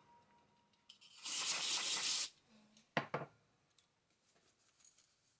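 Aerosol spray fired in one hissing burst of about a second, flushing cleaner through a chainsaw line, followed about a second later by a sharp knock.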